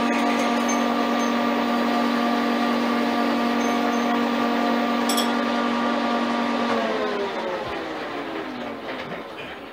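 Frisell metal lathe running with a steady gear whine, then switched off about seven seconds in, its pitch falling as the spindle coasts down.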